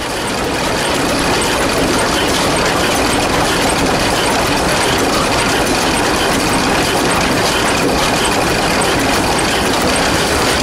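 Brons 1D25 single-cylinder diesel engine running steadily at its slow 320 rpm, a dense mechanical clatter with a regular ticking.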